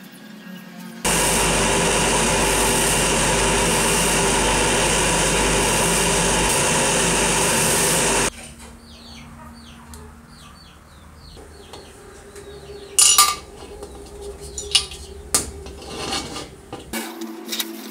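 Bench-mounted wire wheel brush spinning against a small brass stove part, a loud steady scrubbing hiss that starts about a second in and cuts off suddenly after about seven seconds. It is followed by light scrapes and a few sharp metallic clinks and knocks as the old steel kerosene-stove tank is handled.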